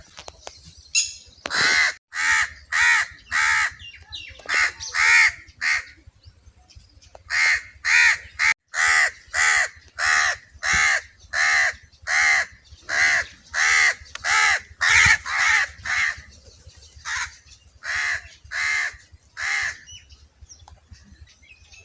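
Crow cawing over and over in runs of loud, harsh caws, about two a second, with short pauses between the runs.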